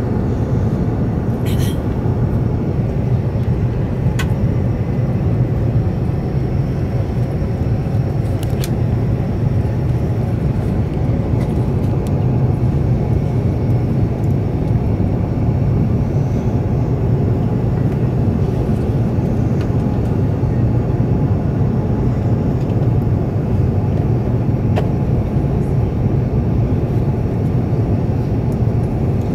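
Steady cabin noise on the upper deck of an Airbus A380 in descent: a constant low drone of engines and airflow, with a few faint clicks now and then.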